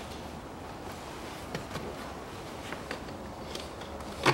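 A few faint, scattered small clicks of hands working on plastic fittings and wiring connectors in a car's engine bay, with one sharper click near the end.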